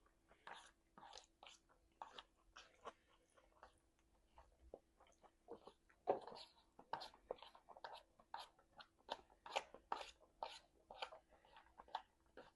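A person chewing food close to the microphone: irregular wet clicks and crunches of eating, with a louder crunch about six seconds in.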